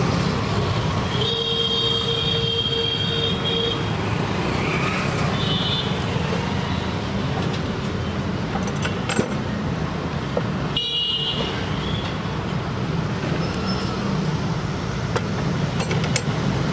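Steady street traffic rumble with a vehicle horn held for about two and a half seconds near the start, and a shorter high beep about eleven seconds in.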